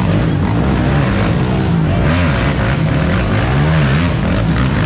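Several race ATV engines revving hard together, their pitch rising and falling over and over as the riders work the throttle.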